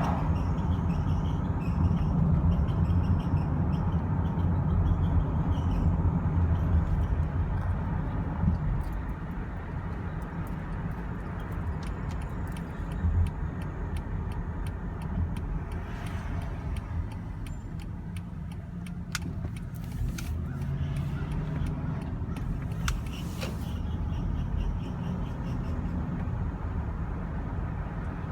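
Cabin of a moving 2013 Honda Odyssey EX-L: steady road and engine rumble, with a repeating high-pitched squeak over the first several seconds and scattered light clicks later. It is the squeak that appears on the first drive of the morning and is worse when coasting.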